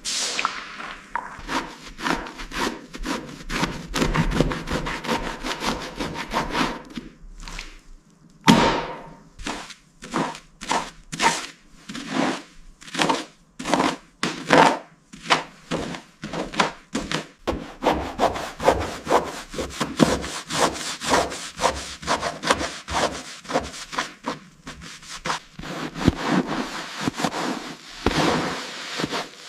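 Rhythmic back-and-forth scraping by hand on a hard surface, about two strokes a second. It pauses briefly about seven seconds in and starts again with a sharp stroke.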